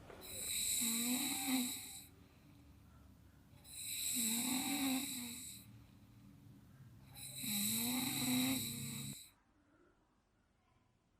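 A person snoring loudly: three long snores about three and a half seconds apart, each with a wavering, rattling pitch, after which it stops.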